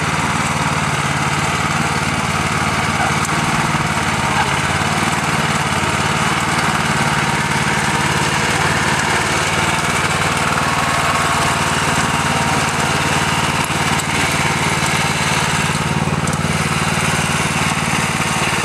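Merry Tiller's small gasoline engine running steadily while its tines work through garden soil.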